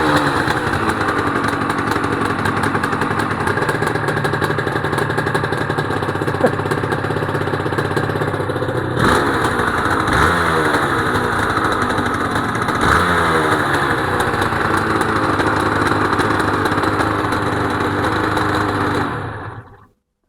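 Honda NSR250R-SP's two-stroke V-twin engine running through JHA expansion-chamber pipes, blipped a few times with the revs falling back to a fast idle each time. It dies away near the end.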